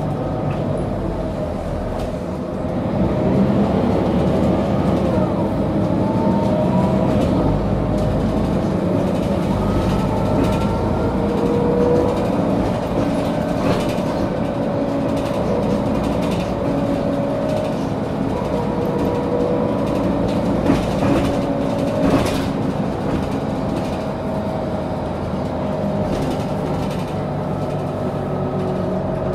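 Mercedes-Benz O530G Citaro articulated bus heard from the passenger cabin while under way: a steady engine and drivetrain rumble with whines that slowly rise and fall in pitch as the bus changes speed. Now and then a knock or rattle, the sharpest about three quarters of the way through.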